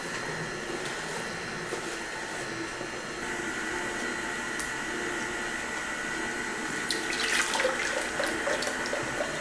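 Nama J2 slow juicer's motor running with a steady hum and high whine as it presses pineapple and ginger. Near the end the juice spout is opened and juice splashes into a plastic pitcher.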